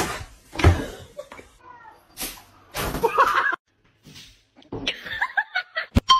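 A sudden sharp sound at the start, then people laughing and exclaiming in short bursts.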